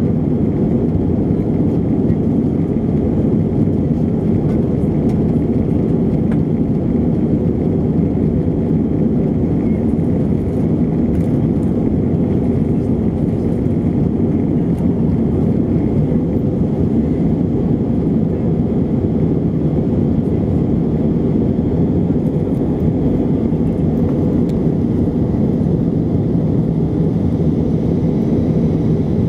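Steady low engine and airflow noise inside the cabin of an Airbus A320 climbing after takeoff, heard from a window seat over the wing.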